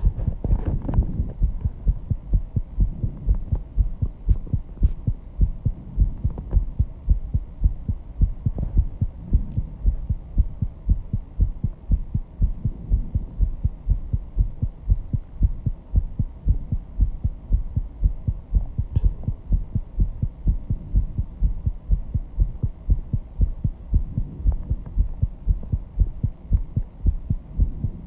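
A person's heartbeat, fast and steady, each beat a dull low thump in an even rhythm: the heart still racing after intense exercise.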